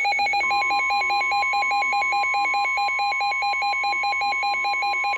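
Weather radio alert: rapid, evenly pulsing electronic beeps that alternate in pitch, joined about half a second in by the steady 1050 Hz NOAA Weather Radio warning alarm tone, the signal that a warning (here a flash flood warning) is about to be broadcast. The pulsing cuts off abruptly at the end while the steady tone carries on.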